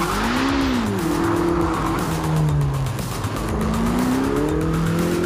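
Ferrari sports car engine running at speed on a race track, its pitch dipping over the first half and then climbing again over the second half, over a steady tyre and road noise.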